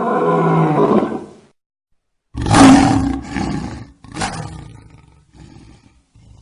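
Lion roaring: a long roar fades out about a second and a half in. After a brief silence comes a louder roar, then a second one about four seconds in, and a few fainter grunts trailing off toward the end.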